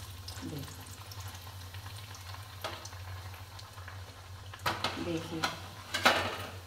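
Puri frying in hot desi ghee in an iron kadhai, a soft steady sizzle over a low hum, with a metal slotted spoon knocking and scraping against the pan several times in the second half, loudest about six seconds in.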